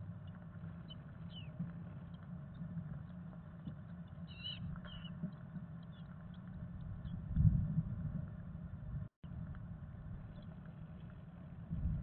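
Chickadee nestlings shuffling and scratching on the moss of a nest box, over a steady low hum. A few faint high peeps come near the middle, and there is a dull thump about seven and a half seconds in.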